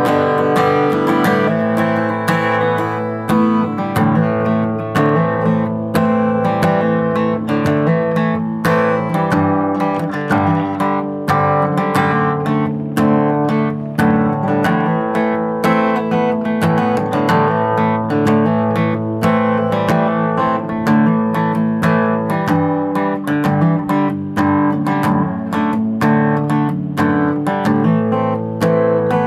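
Taylor acoustic guitar played in a fast, steady picked and strummed pattern with no singing, recorded through a DSLR camera's built-in microphone.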